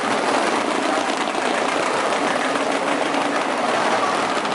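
Moto3 racing motorcycle engines running, heard as a steady, dense mechanical drone with no single bike standing out.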